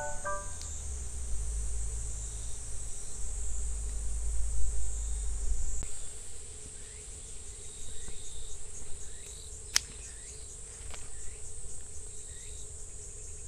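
Steady high-pitched chorus of insects in a summer garden, with a low rumble in the first half. A little under ten seconds in, one sharp snip of kitchen scissors cutting a fruit from the vine.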